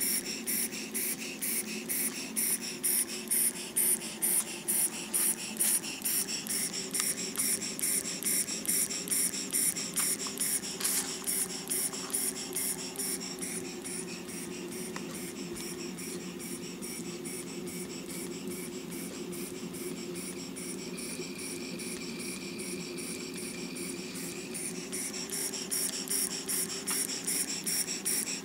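Stuart 10V model vertical steam engine running smoothly on compressed air at very low pressure, its exhaust puffing in a fast, even beat. The beat is softer in the middle and strong again near the end.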